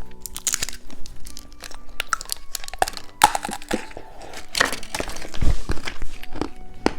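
Plastic candy packaging crinkling and crackling with many sharp clicks as it is handled and opened, busiest about three to five and a half seconds in.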